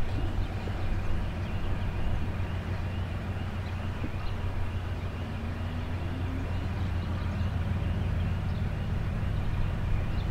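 3TE10M diesel locomotive's 10D100 two-stroke opposed-piston engine running with a steady low drone as it moves a freight train slowly along the station track.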